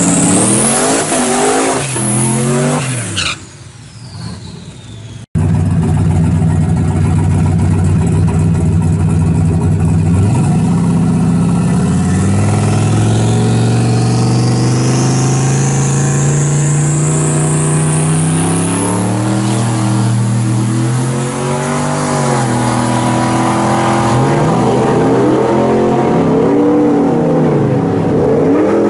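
Turbocharged Chevrolet Silverado pickup's engine idling and revving, with a long rising turbo whine as it builds boost. It then launches at full throttle, its engine note rising and falling through the gears.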